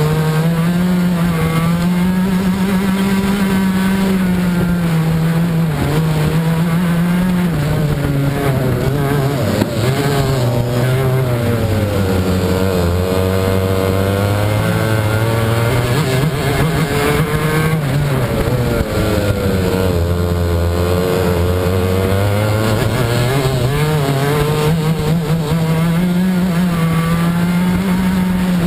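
Onboard a Club 100 racing kart: its two-stroke engine runs hard throughout. Its pitch drops and climbs again as the kart slows for corners and accelerates out, lowest about ten seconds in and again about twenty seconds in.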